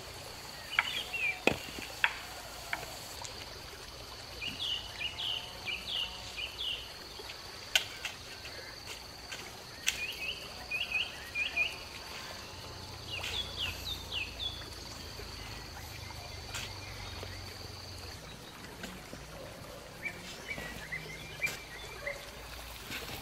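Outdoor rural ambience: a steady high insect drone that stops about three quarters of the way through, with a bird's bursts of quick chirps every few seconds. A few sharp knocks of tool work break in now and then.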